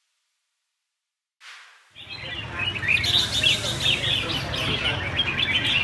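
Caged red-whiskered bulbuls chirping and singing, many birds at once in a dense, rapid chatter that begins about two seconds in.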